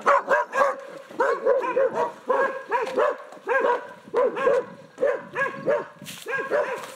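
A dog barking over and over, short pitched barks coming several a second in quick runs.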